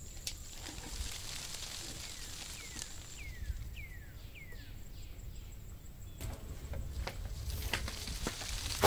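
Countryside ambience: a bird gives a quick series of about six falling whistled notes, over a low wind rumble, with a faint steady high whine that stops about three seconds in. A few light clicks, and a sharp click at the very end.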